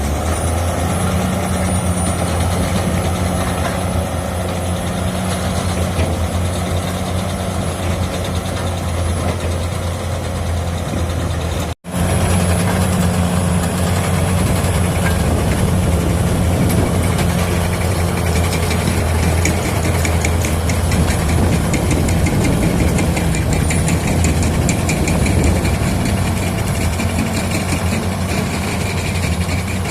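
Heavy diesel engine of earthmoving machinery running steadily with a deep, even drone. The sound drops out for an instant about twelve seconds in.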